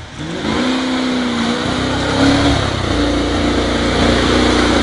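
Range Rover's V8 engine revving hard under load as the 4x4 pushes through deep mud. The revs climb within the first half-second, rise again about halfway through, then hold high.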